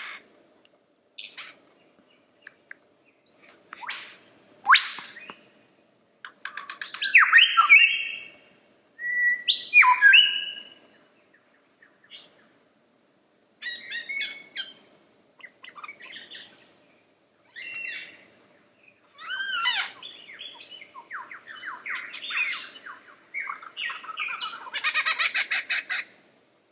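Lyrebird singing a varied run of phrases: clear whistles, fast rattling trills and repeated sweeping notes, broken by short pauses.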